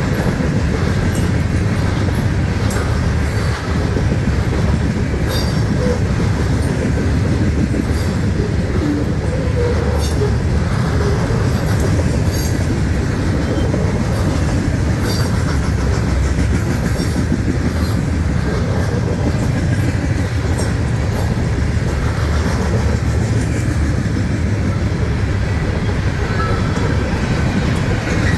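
Loaded ballast hopper cars of a CSX freight train rolling steadily past: a constant low rumble of wheels on the rails, with occasional sharp clicks.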